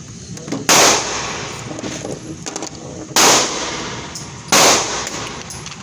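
Three pistol shots, the second about two and a half seconds after the first and the third about a second and a half later, each with a short echoing tail.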